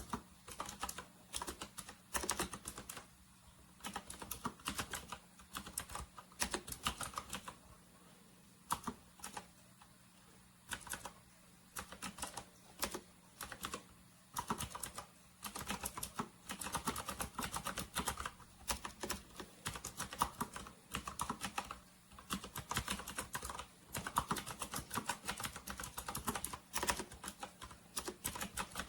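Typing on a typewriter-style mechanical keyboard: rapid runs of key clicks in bursts, with short pauses between them.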